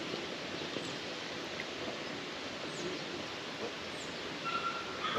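Outdoor ambience by a lake: a steady hiss of breeze and water, with faint high chirps from birds, each falling in pitch, every second or two.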